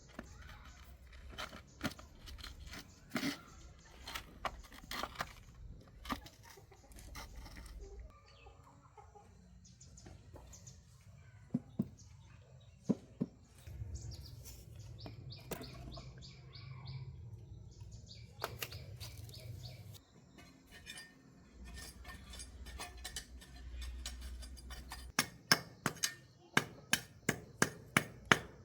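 Chickens clucking, with scattered sharp knocks and taps. Near the end comes a quick run of loud sharp taps, about three a second.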